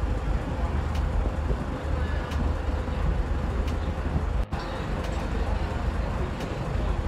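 Steady low rumble of a river boat's engine, with a haze of water and wind noise; a brief cut-out about four and a half seconds in.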